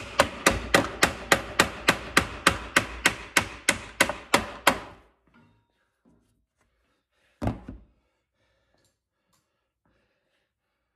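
A mallet tapping a bolt through a drilled hole in a plastic snowmobile ski: a quick, even run of strikes, about four a second, that stops a little under five seconds in. A single further knock follows a couple of seconds later.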